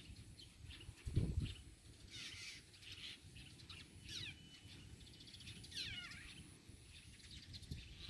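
Birds chirping and calling faintly, with two quick downward-sliding calls about four and six seconds in. A low thump comes about a second in.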